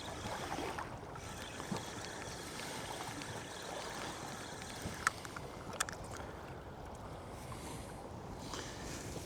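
Water sloshing against the hull of a small drifting boat, with wind, and a few light knocks about two seconds in and again around five and six seconds in.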